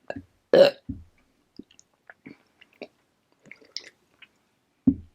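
Close-miked chewing of tortilla chips: small wet clicks and crackles from the mouth, with one short, loud burst of breath or voice about half a second in and a low thump near the end.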